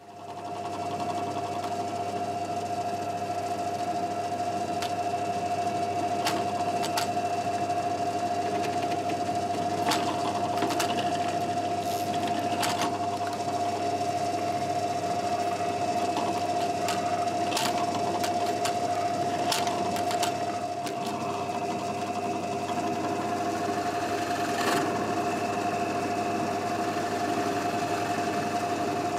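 Drill press motor running at a steady pitch while its bit drills the neck-bolt holes through a wooden guitar body, with a few sharp clicks now and then.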